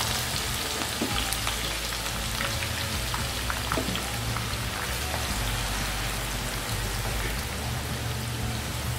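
Freshly added raw sliced onions deep-frying in hot oil over a high flame: a loud, steady sizzle of bubbling oil with faint crackles.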